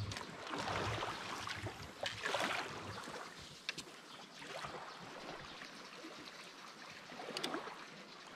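Water sloshing and lapping against the hull of a small wooden outrigger boat in shallow water, swelling and fading every second or two, with a few light knocks.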